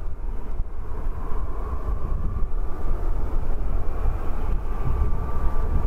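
CFM LEAP-1B turbofans of a Boeing 737-8 MAX as the airliner comes in low over the runway to land. A steady low jet rumble with a faint high whine, growing slowly louder.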